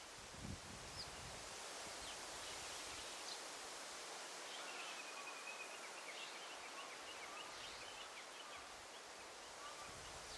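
Forest ambience: a steady rustle of leaves, with faint bird calls over it. There are scattered short high chirps, and a short trill about four to six seconds in.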